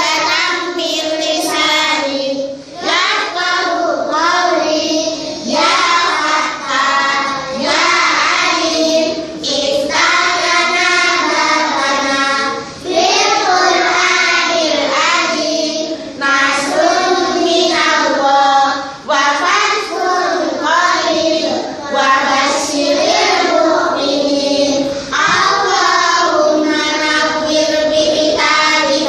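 A class of young children singing together in unison, sung phrases with short breaks between them.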